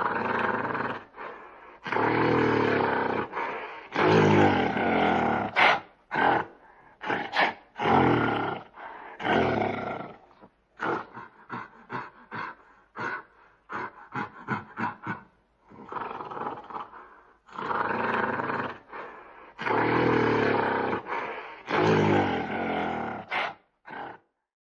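An animal calling loudly: long, harsh, pitched cries a second or two each, with a run of short, quick cries in the middle.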